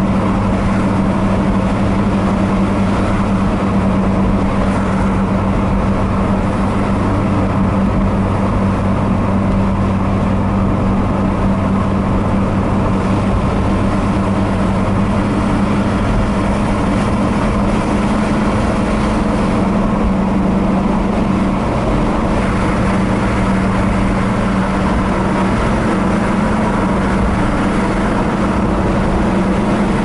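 Car travelling along a highway: a steady low engine drone with a constant rush of road and tyre noise.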